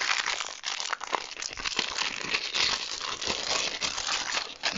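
Small plastic parts bag crinkling and rustling continuously as it is handled.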